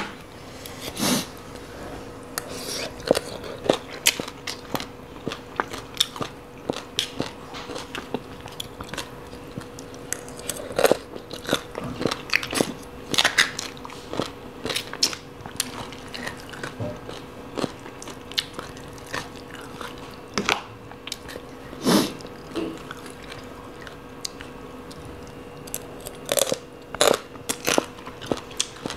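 Close-up chewing and biting of crunchy spicy papaya salad, with many sharp, irregular crunches. A faint steady hum runs underneath.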